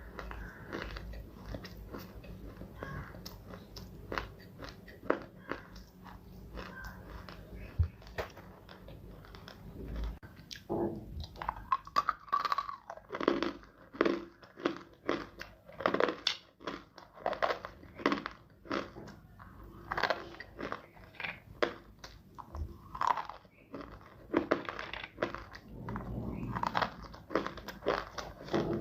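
Dry clay chunks being bitten and chewed close to the microphone, sounding as a run of sharp, crisp crunches. The crunches are sparse and soft at first, then come louder and thick and fast from about a third of the way in.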